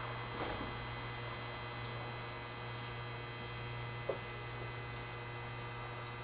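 A stationary Ichibata Electric Railway electric railcar, with its onboard equipment giving a steady electrical hum and a faint whine. There is a small tick about four seconds in.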